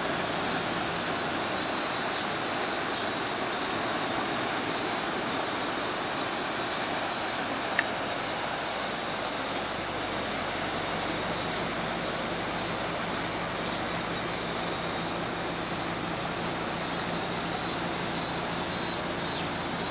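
Steady rushing of the flood-swollen Shimanto River, fast muddy current churning and breaking over bankside rocks, with a single sharp click about eight seconds in.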